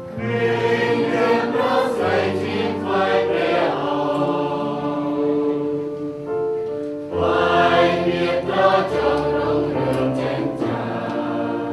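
Choir singing a hymn in long held notes over a steady low accompaniment.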